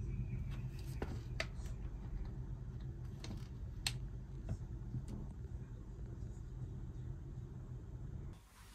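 Steady low hum of room noise, with a few light clicks and taps as a plastic spray bottle is handled on a shelf. The hum cuts off suddenly near the end.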